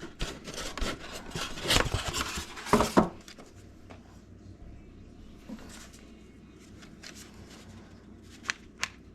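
Rustling and scraping of packaging with a few knocks as a toy RC plane's remote control is lifted out of its box, then a few sharp clicks near the end.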